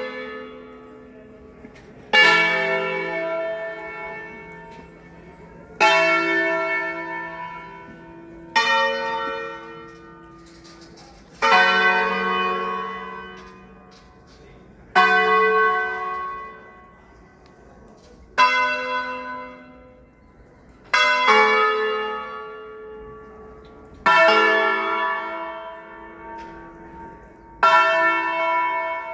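Church tower bells rung full swing (a distesa). Strokes of bells of different pitch come about every three seconds, each ringing out and slowly fading before the next.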